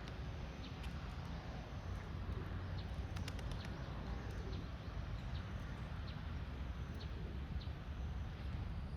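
Outdoor ambience: a steady low rumble with scattered faint short ticks, a small cluster of them about three seconds in.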